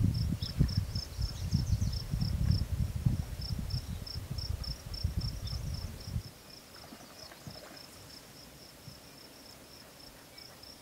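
A cricket chirping steadily, about three short high chirps a second. For the first six seconds a louder low gusty rumble lies under it, then stops suddenly.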